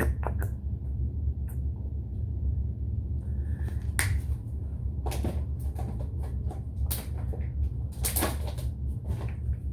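Handling noises of slime-making: scattered short clicks, taps and rustles of containers and ingredients being worked with, over a steady low hum.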